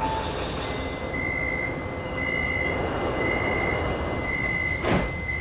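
Metro train door-closing warning: a high beep sounding about once a second while the sliding car doors close, with a single knock about five seconds in as the doors shut. The train's steady low hum runs underneath.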